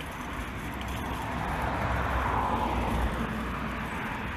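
Road traffic: a car passing on the road alongside, its tyre and engine noise swelling about two seconds in and then easing off.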